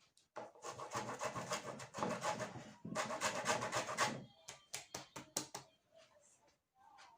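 Quick rhythmic rasping strokes of a lemon worked by hand against a ridged kitchen tool, stopping about four seconds in and followed by a few light clicks.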